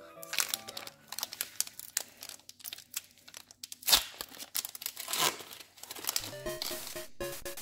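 A Pokemon Battle Styles booster pack's foil wrapper being crinkled and torn open by hand: a run of crackling and rustling with one sharp, louder snap about four seconds in. Background music with steady notes comes in near the end.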